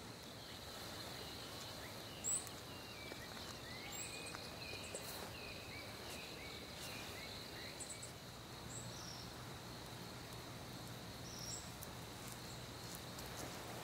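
Faint dawn birdsong: scattered short bird chirps over a steady, high-pitched insect drone. A single sharp click a little over two seconds in.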